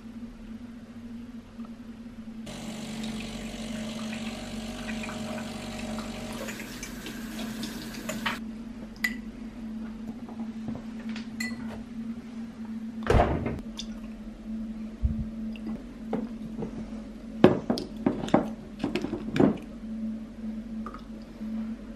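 Water running for about six seconds, then stopping, followed by a series of clicks and knocks, with a loud knock about halfway and a cluster of clattering near the end. A low steady hum runs underneath.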